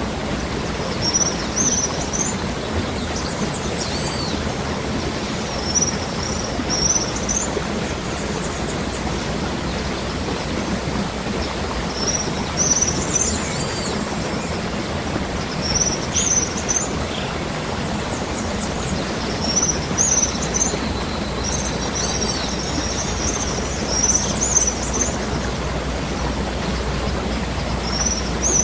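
Waterfall rushing steadily, with birds chirping in short high phrases every few seconds.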